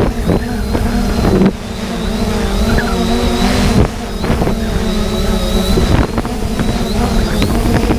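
3DR Solo quadcopter's electric motors and propellers whining steadily, the pitch wavering as the drone holds and turns. Wind buffets the microphone. The sound dips briefly twice.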